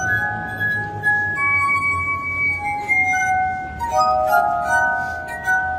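Glass harp: rows of wine glasses tuned with water, played by rubbing fingertips around their rims, ringing out a melody of held, pure tones with several notes sounding together.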